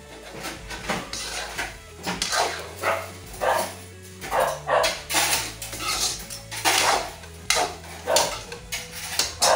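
A dog barking over and over, a short bark every half second to a second, with faint music underneath.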